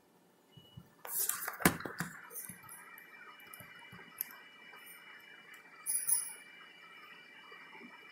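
Faint computer-desk noises: a rustle and a sharp click about a second and a half in, a fainter click near the middle and another short rustle near the end, with a faint steady high whine underneath from about two seconds on.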